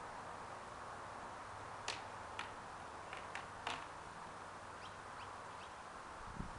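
A few sharp clicks and knocks from kayak gear being handled and fitted together, over a steady background hiss. The clicks come about halfway through, five in little more than a second and a half.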